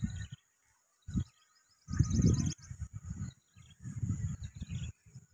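Outdoor field ambience: a steady high insect drone with small birds chirping, broken by irregular low rumbling gusts of wind on the microphone, the loudest sound.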